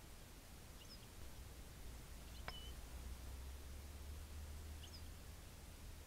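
Faint, short high call notes from a small songbird, about one every two seconds, with a sharp tick midway, over a steady low rumble.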